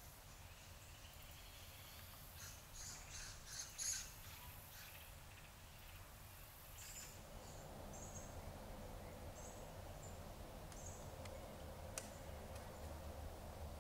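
Faint forest ambience with scattered high bird chirps: a cluster of them about three seconds in and short chirps again in the second half. A soft hiss builds from about halfway, and there is a single sharp click near the end.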